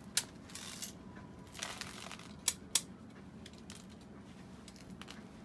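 Empty hard-gelatin capsules, size 3, rattling and sliding across a stainless-steel capsule-loading tray as it is tipped. There are a few sharp metal clicks as the tray is handled, two of them close together about halfway through.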